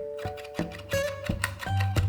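Background music led by plucked acoustic guitar, with held notes and light rhythmic plucks.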